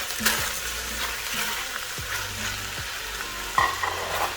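Onions, bell peppers and broccoli sizzling in hot oil in a pot while being stirred, with a spoon scraping and knocking against the pot. There is a sharper clatter about three and a half seconds in.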